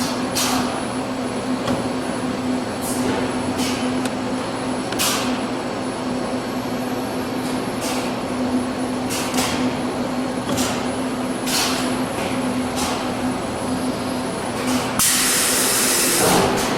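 Robotic spot-welding cell at work: a steady machine hum, with short sharp hissing snaps of the welding gun roughly once a second, and a louder burst of hiss lasting over a second near the end.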